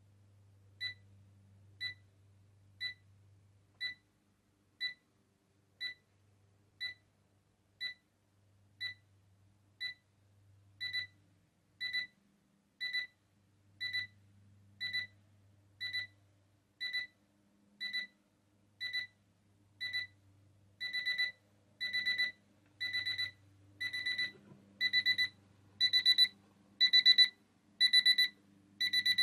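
Digital alarm clock's alarm beeping, a high electronic beep about once a second that gets steadily louder. From about twenty seconds in, each beep becomes a quick burst of several beeps: an escalating alarm.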